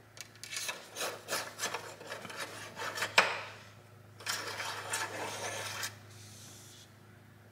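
Paper shop towel rubbing and crinkling as an engine oil dipstick is wiped clean, with a sharp click about three seconds in as the dipstick is pushed home in its tube, then a second stretch of rubbing and scraping as it is drawn out again.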